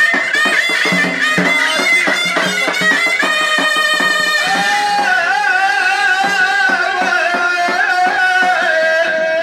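Tunisian folk music: quick drum strokes under a reedy, bagpipe-like melody. About halfway through it gives way to one long, wavering held melody line.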